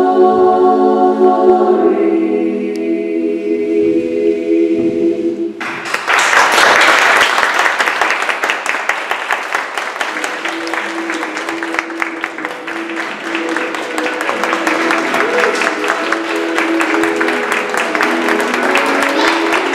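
A group of children singing the last sustained chord of a song, holding one chord and then a lower one before cutting off together about six seconds in; audience applause follows for the rest, with a faint tune underneath.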